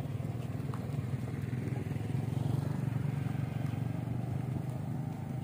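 Motorcycle engine running close by, swelling a little about halfway through and easing off toward the end.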